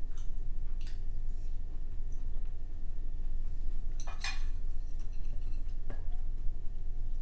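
Eating utensil knocking and scraping on a dish, with one louder ringing clink about four seconds in, over a steady low hum.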